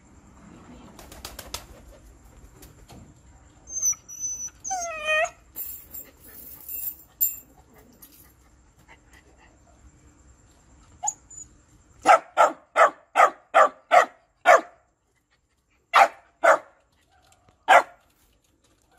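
Young Shiba dog barking to be fed: a quick run of about seven sharp barks, then three more after a short pause.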